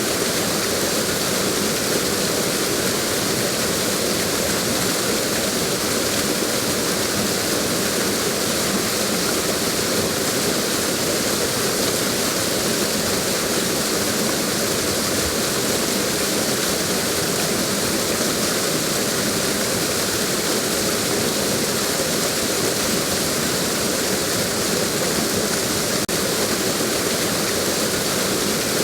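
Waterfall: water falling and splashing onto rock and pool in a steady, unbroken rush.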